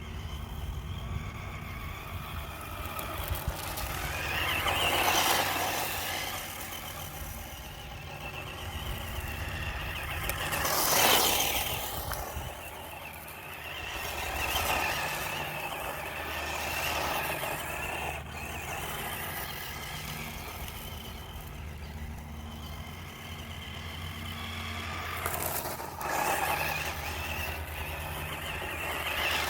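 Futaba FX-10 electric RC buggy driving around in sand, its motor and gears whining. The sound swells several times as the buggy passes close.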